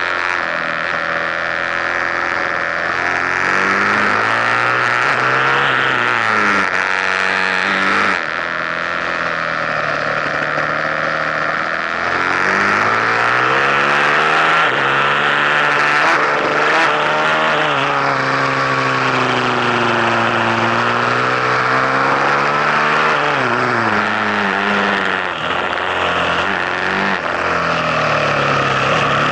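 KTM 450 SMR supermoto's single-cylinder four-stroke engine heard from onboard, its pitch climbing and falling again and again through corners, with abrupt gear changes.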